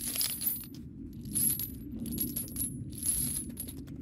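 Spent brass pistol casings clinking and tinkling against one another, a rapid run of light metallic clicks with a high ring, over a low steady drone.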